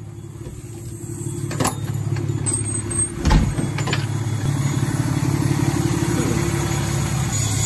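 Pickup truck engine idling steadily, growing louder as it is approached. There is a click a little under two seconds in and a sharp thump a little over three seconds in.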